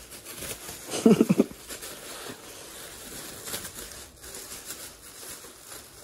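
Black plastic bag rustling and crinkling as hands pull it open over a wire birdcage, with a short voice sound about a second in.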